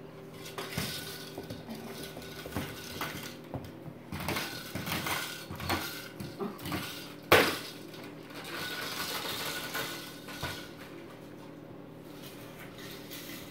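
A toddler's plastic push-along toy rattling and clattering as it is rolled over a laminate floor, with scattered clicks and one sharp knock about seven seconds in.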